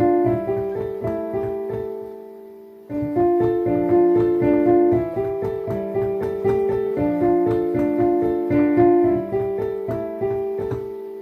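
Piano playing a melody with chords. It fades to a brief pause about two to three seconds in, starts again, and dies away near the end.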